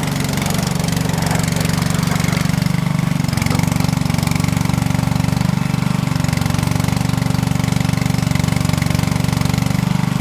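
Skid-steer loader's engine running steadily at a constant speed, with a fine, even pulsing beat.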